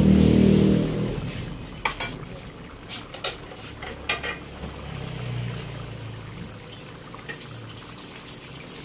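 Thick dinuguan, a pork stew in pig's blood, simmering in a pan: bubbles popping through the dark sauce with scattered wet plops and clicks.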